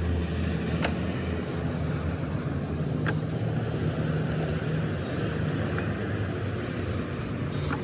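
A steady low engine drone, with three faint clicks as concrete tiles are set down on a stack.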